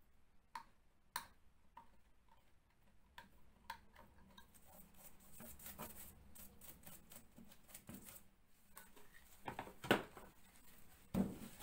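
Faint ticks and light scratching of a utility knife blade picking at the torn paper and gypsum edge of a hole in plasterboard, checking for loose material. A sharper knock about ten seconds in.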